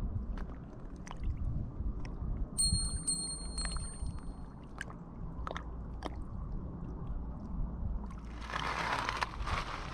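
A small bite-alarm bell on a bottom fishing line rings, jingling two or three times from about two and a half seconds in, signalling a bite. Under it runs a low wind rumble on the microphone, with a brief rush of noise near the end.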